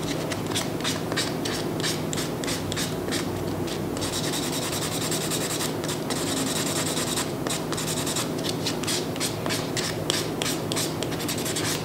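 Nail buffer block sanding an artificial nail tip in quick back-and-forth strokes, with a steadier stretch of rubbing from about four to seven seconds in. The surface is being roughed up to prepare it for gel.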